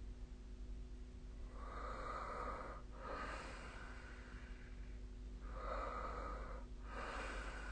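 A sleeping person breathing heavily without snoring: two slow breath cycles, each an airy breath in and out with a brief pause between.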